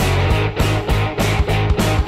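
Rock music with guitar over a steady, quick beat.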